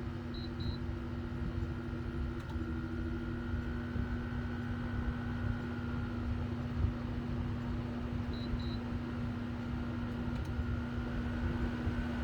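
LG LW6017R window air conditioner running, quite noisy: a steady fan rush with a low, even compressor hum and a fainter high whine on top. A faint pair of short high pips sounds twice, about eight seconds apart.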